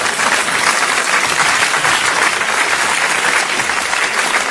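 Audience applauding: dense, steady clapping throughout.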